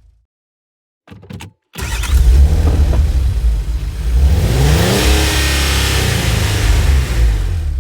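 Car engine cranking on the starter without firing up: a short burst just after one second, then about six seconds of continuous cranking with a heavy low rumble and a pitch that rises and levels off midway.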